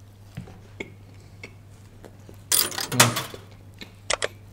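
A man chewing a mouthful of gahat dal paratha close to the microphone, with small wet mouth clicks, a louder rushing sound about two and a half seconds in, and two sharp clicks near the end. A low steady hum runs underneath.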